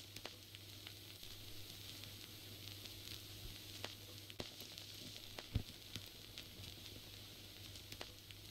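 Faint crackle of a vinyl record turning under the stylus with no music yet: steady surface hiss over a low hum, broken by scattered clicks and pops, the loudest pop about five and a half seconds in.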